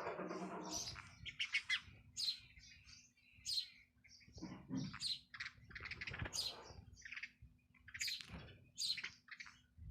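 A bird chirping over and over in short, high calls.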